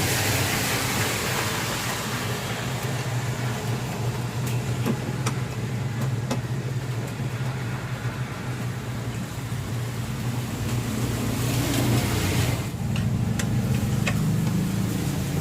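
A steady low engine-like hum runs throughout, with a few sharp metallic clicks of hand tools at work as the fuel pump's bolts and hose are fitted.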